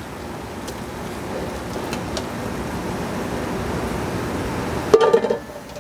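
Hot salmon stock being poured from a pot through a fine-mesh china cap strainer into a pot below, a steady splashing pour that grows louder as it goes, with a brief knock about five seconds in.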